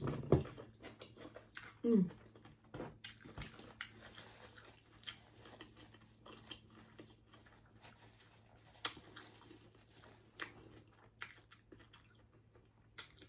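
A person chewing and biting food close to the microphone, with many small wet clicks and smacks. There is a brief falling voiced sound about two seconds in.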